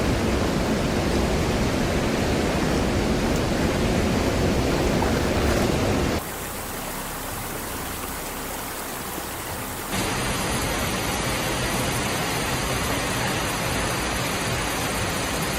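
Steady noise of rushing water. It drops in level about six seconds in and rises again about ten seconds in.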